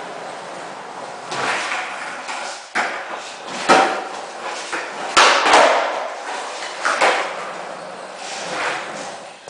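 Skateboard rolling on a smooth concrete floor, the wheels giving a steady rumble, with about five sharp clacks of the board's tail and deck hitting the concrete, the loudest about four and five seconds in.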